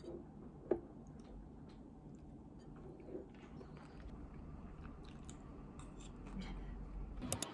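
Someone eating from a rice bowl: faint chewing, with a metal spoon clinking and scraping against the ceramic bowl, a sharp clink about a second in and a few quick clinks near the end.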